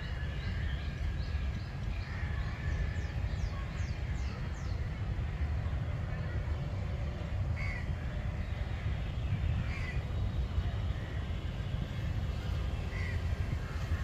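Birds calling in a park: a quick run of high, descending chirps in the first few seconds, then a few short calls spaced a couple of seconds apart, over a steady low rumble.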